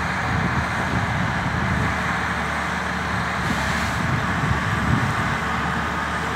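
Komatsu 901TX.1 forest harvester's diesel engine running steadily as the machine drives slowly on tracks and chains, with a brief hiss about halfway through.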